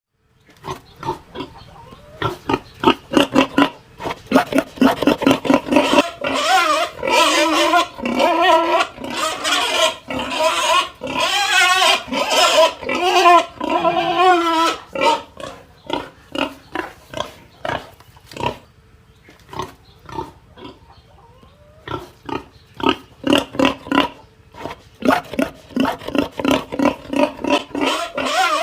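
Pig grunting and squealing in quick repeated calls, with longer wavering squeals in the first half; the calls thin out for a few seconds past the middle, then come fast again.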